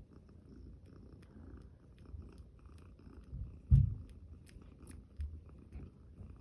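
Cat purring steadily, with faint small clicks and rustles and one low thump a little past halfway, the loudest sound.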